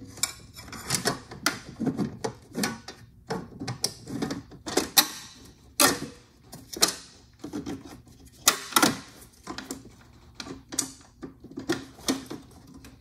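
Irregular clicks and knocks of a storage bracket being worked into place in a snowmobile's engine compartment, its hole pushed over a stud and knocking against the surrounding parts.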